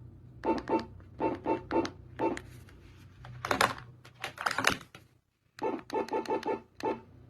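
Speaker output of a light-to-sound demo: a steady low hum with short, repeated buzzy pulses in quick groups and a couple of harsher noisy bursts in the middle. Just past halfway everything, hum included, cuts out for about half a second before the pulses resume.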